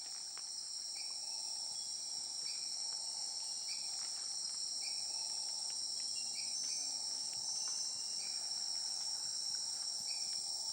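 Steady, high-pitched chorus of many rainforest insects, with a faint short chirp repeating about once a second.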